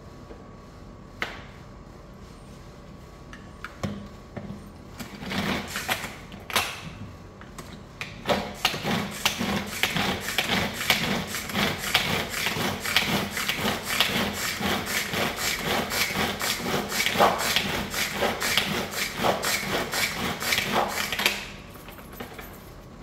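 A hand-pulled string food chopper is worked over and over, its blades whirring and clattering round the plastic bowl in quick rhythmic pulses as they chop the contents. A few separate knocks come first, and the chopping stops shortly before the end.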